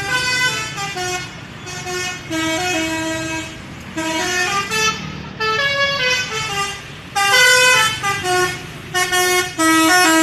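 Indonesian 'telolet' bus horn, a set of musical air horns sounding one note after another, playing a quick tune in several phrases of stepped notes with short breaks between them. Some phrases end on a longer held low note. A low engine rumble runs beneath.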